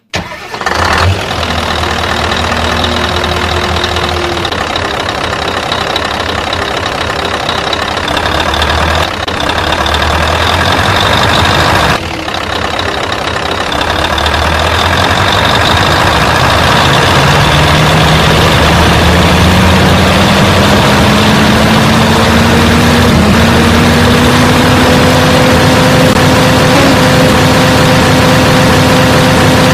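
Radio-controlled truck running, its motor's noise continuous throughout. In the second half a motor tone rises slowly in pitch, then holds steady.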